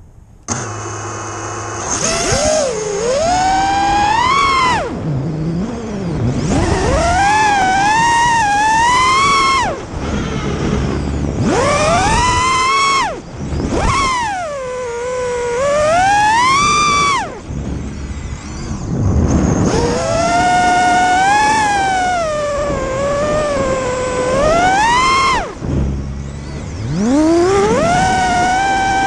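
A racing quadcopter's four Emax RS2 2206 1600 kV brushless motors and propellers whining. There are faint steady tones at the start, then a loud whine about two seconds in whose pitch rises and falls in long swoops with the throttle.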